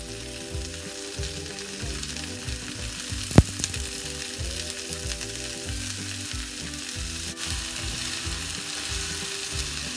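Sliced vegetables sizzling in a non-stick frying pan over a high gas flame while a silicone spatula stirs them, with a steady hiss and soft scraping. One sharp knock comes about three and a half seconds in.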